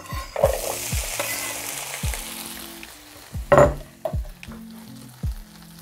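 Chopped cherry tomatoes tipped into a frying pan of hot oil and tomato paste, setting off a sudden sizzle that fades over about three seconds. A sharp knock comes about three and a half seconds in, over background music with a steady beat.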